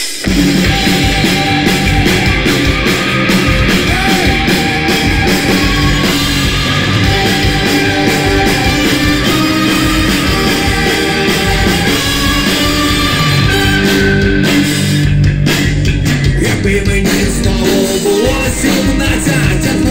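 Live ska-punk band playing loud: electric guitar, drums and a brass section of trumpet, trombone and tuba, with singing. The full band comes in abruptly at the start.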